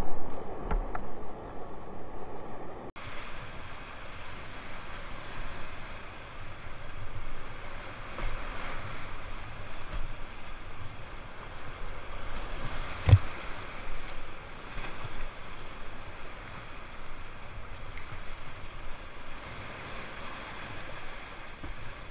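Whitewater rapids rushing and splashing around a kayak as it is paddled through. One sharp knock about 13 seconds in.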